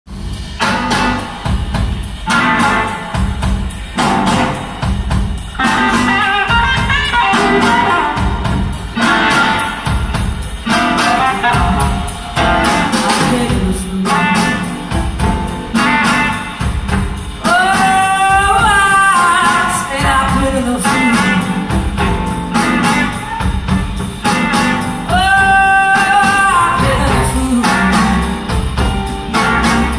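Live band playing a slow blues with electric guitars, drums, keyboards and a horn section, heard from the audience. The beat pulses about once a second, and twice in the second half a long held note that bends in pitch stands out over the band.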